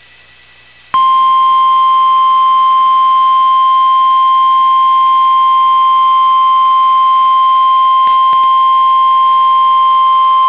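NOAA Weather Radio warning alarm tone: after about a second of radio hiss, a single loud, steady 1050 Hz tone sounds and holds at one pitch for about ten seconds. This tone is the alert that comes just before a tornado warning message is broadcast.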